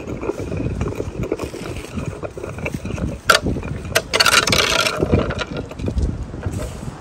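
Round metal disc spinning and wobbling on a tarmac path, scraping and clicking against the surface as it slows and tips over. Wind buffets the microphone throughout.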